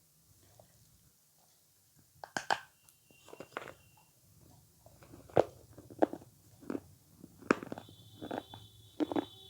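Close-miked bites and wet chewing of avocado: a couple of sharp bites after a short pause, then steady chewing at a little more than one chew a second.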